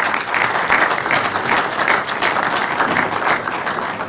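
Audience applauding, dense clapping that begins to thin out near the end.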